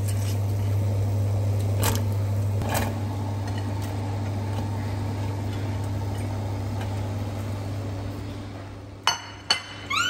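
Water boiling in a stainless steel pot of green beans, over a steady low hum, with a few light clinks against the pot and two sharp clicks near the end.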